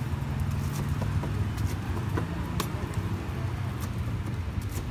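Steady low engine-like hum of street background, with a few light, sharp clicks and taps from the roti counter, including a knife cutting the pancake near the end.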